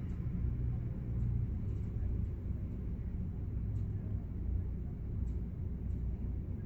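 Steady low outdoor rumble with a few faint ticks, and no gull calls standing out.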